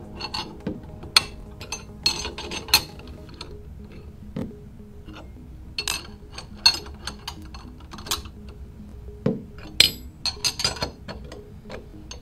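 Steel wrenches clinking and clicking against the steel hex nuts and bolts of a flange joint as the nuts are tightened: irregular sharp metallic clinks, each with a short ring, coming in clusters. Background music plays underneath.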